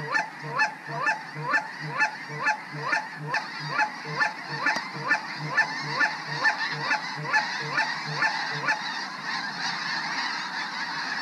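Snow geese calling: a high, falling honk repeated at an even pace, about two and a half times a second, over a steady chorus of many geese. The repeated calls fade out after about nine seconds.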